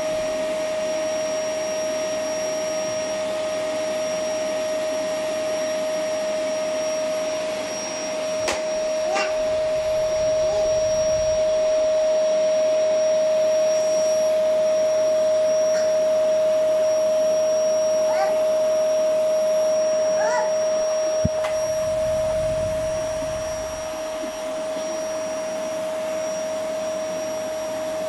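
Canister vacuum cleaner running steadily, a strong high whine over a rush of air. It grows louder about a third of the way in and eases back down near the end.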